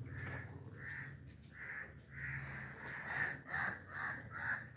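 A crow cawing over and over: about ten short calls, coming closer together in the second half.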